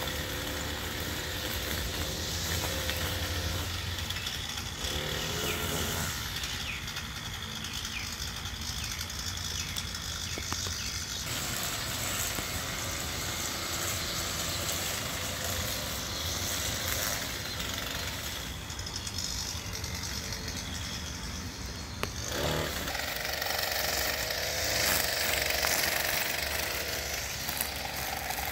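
Echo SRM-230 two-stroke gas string trimmer running while cutting grass, its engine pitch shifting several times as the throttle is worked, with a sharp change about three quarters of the way through.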